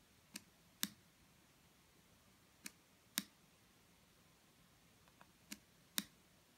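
Sharp mechanical clicks in pairs, a softer click followed about half a second later by a louder one, the pair repeating roughly every two and a half seconds, over faint room hiss.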